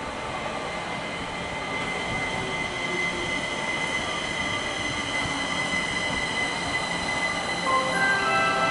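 Kaohsiung MRT Red Line metro train rolling slowly round a curve and through a switch into the station, its wheels squealing with a steady high-pitched tone over the rumble of the cars, slowly growing louder. Near the end a cluster of other steady tones joins in.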